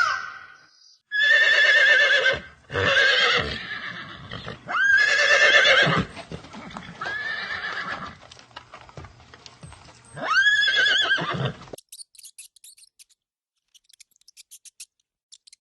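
Horse whinnying: five loud neighs in a row over about ten seconds, each a wavering, quavering call. After them come only faint, quick clicks.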